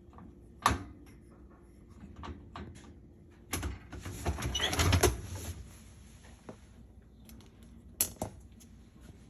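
Handling clatter at an open dishwasher: a sharp knock about a second in, a rattling scrape lasting nearly two seconds around the middle, and two sharp knocks near the end, like the rack being slid and the door pushed shut.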